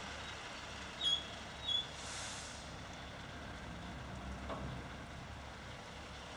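Low steady engine hum, with two short high chirps about a second in and a brief hiss about two seconds in.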